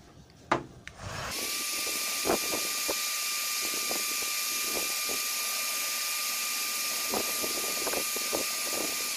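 Parkside heat gun running, blowing hot air onto the plastic bumper: a steady hiss with a steady whine that comes up about a second in and cuts off suddenly at the end. A sharp click sounds just before it starts.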